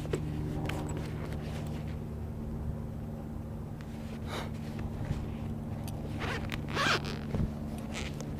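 Vinyl owner's manual case and papers being handled: a few short scraping rustles, the loudest about seven seconds in, over a steady low hum.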